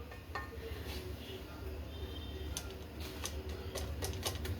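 Several light clicks and taps of kitchen utensils, coming in quick succession from about two and a half seconds in, over a steady low hum.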